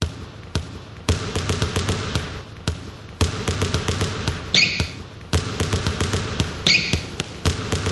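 Percussive ringtone of sharp clicks and low thuds in an uneven rhythm, with two brief hisses a couple of seconds apart in the middle.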